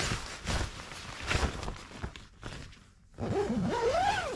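Tent door zipper pulled in several short strokes, with nylon tent fabric rustling. Near the end comes a brief voice sound that wavers up and down in pitch.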